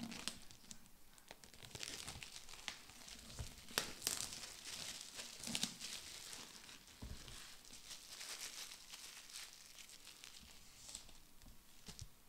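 Plastic shrink-wrap being torn and crumpled off a new book: an uneven run of crinkling with sharp crackles every second or so.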